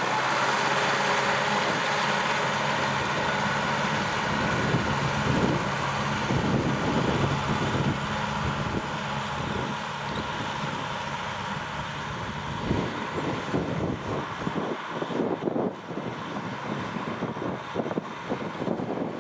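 Kubota M6040SU farm tractor's diesel engine running with a steady note, joined over the last several seconds by irregular thumps and crackle.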